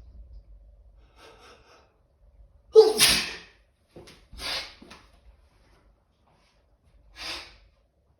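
A person sneezing during a sneezing fit: a faint intake of breath, then one loud sneeze about three seconds in, followed by two quieter, shorter bursts of breath about a second and four seconds later.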